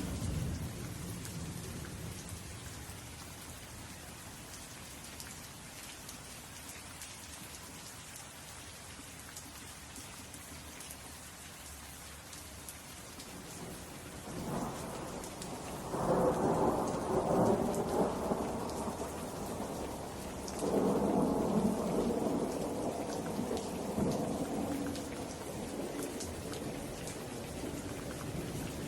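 Steady rain with rolling thunder: a rumble fades in the first second, then two long rolls of thunder come about halfway through, one after the other.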